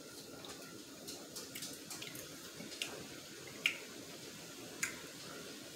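Butter sauce cooking in a pot: a faint, steady rain-like sizzle with scattered small pops, and two sharper clicks a little past the middle.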